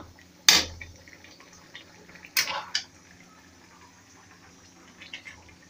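Thick tomato chutney simmering in an aluminium pan, its bubbles bursting in a few short wet pops, three of them louder, about half a second in and twice around two and a half seconds in.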